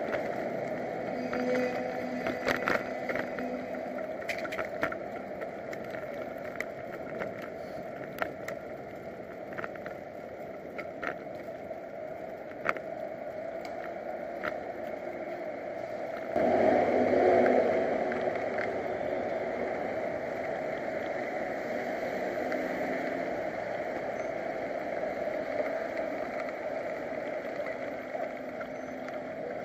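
Wind rush and road noise from a bicycle ride, picked up by a bike-mounted action camera, with scattered light clicks and rattles in the first half and a louder surge about halfway through.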